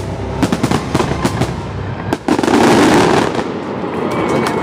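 Aerial fireworks shells bursting in quick succession, a string of sharp bangs, thickening into a dense, loudest stretch of overlapping bursts about two and a half seconds in.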